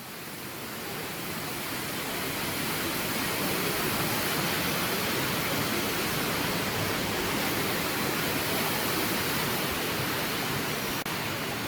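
Waterfall rushing: a steady, even roar of falling water that swells up in the first second or two.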